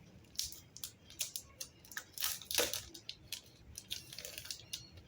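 Handling sounds: a string of light clicks, taps and rustles as a Kindle Paperwhite and its case are handled, with the loudest cluster between about two and three seconds in.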